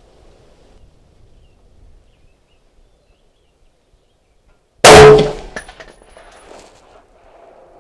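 A single shot from a .308 semi-automatic rifle, the Daniel Defense DD5V2, about five seconds in: one very loud sharp crack that dies away over about half a second, with an echo trailing after it.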